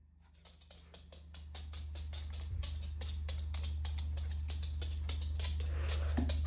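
Quick, irregular clicking of a small dog's claws on a hardwood floor as it walks, over a steady low hum that grows louder after the first second or so.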